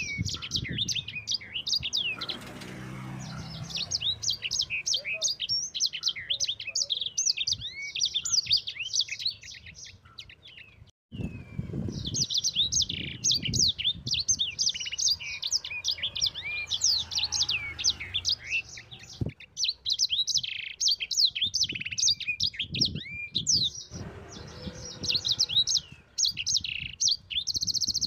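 Sanger songbird singing a long, rapid run of high twittering chirps and trills. There is a short break about eleven seconds in, after which it resumes.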